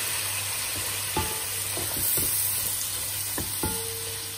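Diced chicken and scrambled egg sizzling in a non-stick pan as they are stir-fried with a silicone spatula, with a few knocks of the spatula against the pan.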